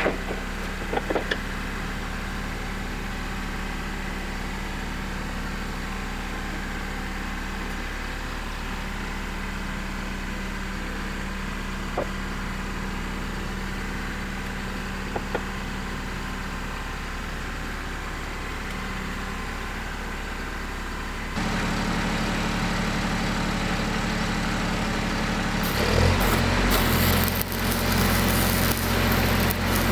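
An engine running steadily, with a few short clicks in the first seconds. It steps up suddenly in level about two-thirds of the way through, and near the end its low note shifts up and down as the engine works harder.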